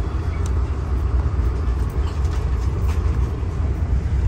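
Steady low rumble of a VIA Rail LRC passenger car running at speed, heard from inside the car, with a few faint clicks.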